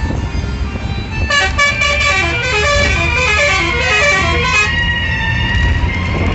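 A vehicle's multi-note musical horn plays a quick run of tones stepping down and back up for about three seconds, over the low rumble of a bus engine and road noise.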